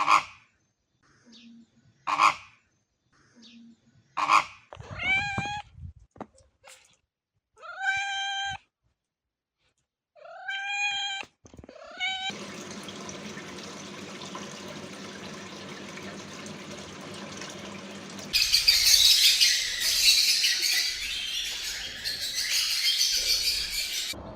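Domestic cat meowing three times, each call rising then falling in pitch. Then a steady rushing noise takes over, growing louder and higher about two-thirds of the way through.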